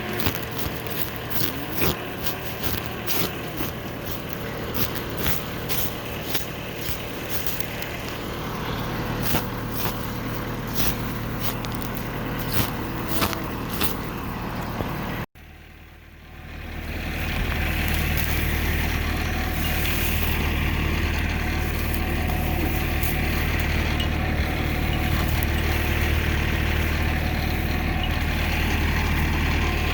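A farm machine's engine running. In the first half a low engine drone is overlaid by a string of sharp clicks and knocks; after a cut about halfway through, the engine comes up over a couple of seconds to a louder, steady run with a deep hum.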